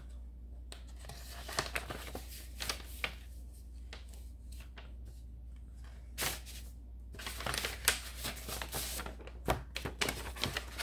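Packaging crinkling, rustling and tearing as a pack of paper scrapbook accents is pulled open, in irregular crackles that get busier about six seconds in.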